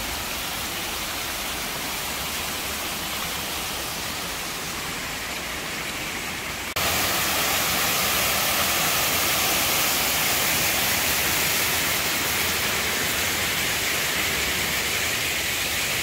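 Water rushing along a landscaped stream. About seven seconds in it becomes louder and brighter.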